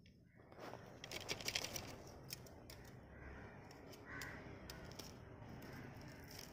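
Light metallic clinking and rattling of a wire grill basket as it is opened and the grilled fish pieces are lifted off it. The clicks come thickest about a second in, then fall to scattered single clicks.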